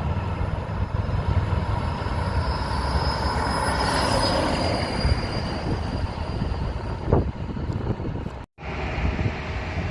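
A train rolling past, a steady low rumble with a thin, high, steady wheel squeal over it. It cuts off abruptly about eight and a half seconds in and is followed by a lighter, steady traffic noise.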